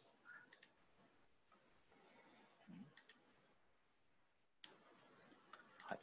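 Faint, scattered clicks from working a computer's controls, a few at a time, with a closer run of clicks near the end.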